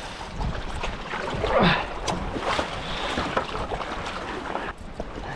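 Sea swell washing and sloshing over a rock ledge beside an inflatable paddleboard, with a few short knocks and bumps.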